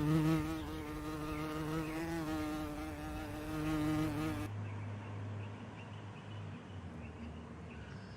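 A steady buzzing with a slightly wavering pitch, ending abruptly about four and a half seconds in; a low hum follows.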